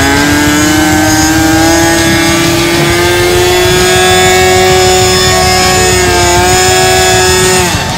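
RC model Cessna's small combustion engine and propeller running at high speed, a steady whine whose pitch creeps slightly higher over the first seconds and then holds. Near the end the pitch falls off sharply as the engine slows.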